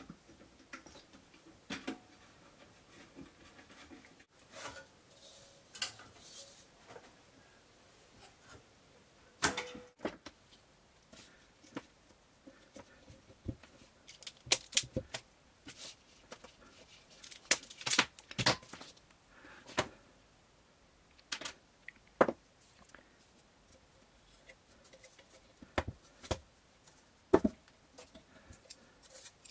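Irregular light clicks, taps and small metallic clinks of hand work on a bench: tools and small metal parts being handled, picked up and set down.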